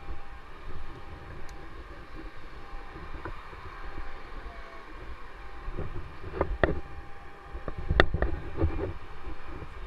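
A few sharp knocks and thumps close to the microphone, clustered in the second half and loudest about eight seconds in, over a low steady outdoor rumble.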